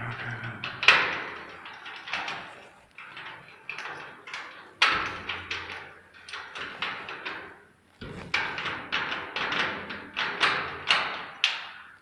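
Irregular series of sharp knocks and taps on a hard object, a few a second, each with a short ringing decay.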